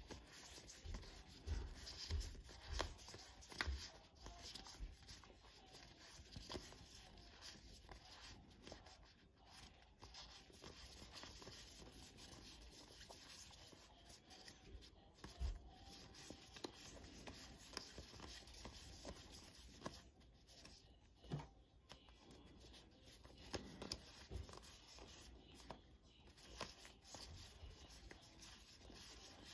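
Faint rustling and sliding of paper envelopes as a stack is leafed through by hand, with a few soft knocks in the first few seconds.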